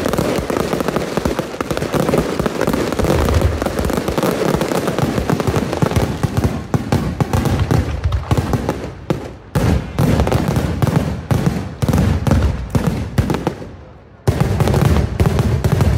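Daylight fireworks: many shells bursting in a dense, continuous rattle of bangs, thinning into more separate sharp bangs about halfway through. A brief lull near the end is broken by another loud volley.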